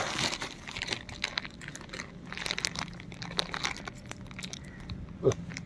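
Rustling and crackling as a bag of crunchy gram flour snacks is handled, many small sharp clicks. A brief voice-like sound about five seconds in.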